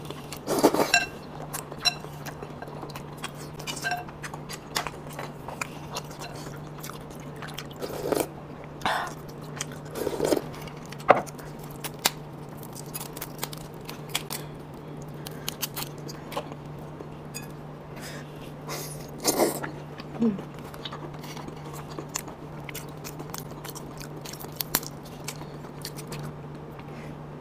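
Close-miked eating sounds: chewing and a few slurps, with many small clicks and crackles, among them langoustine shells being peeled by hand. A faint steady hum runs underneath.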